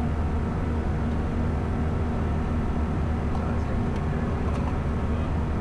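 Steady low rumble of airflow and engines heard inside the cockpit of an Airbus A320 in flight.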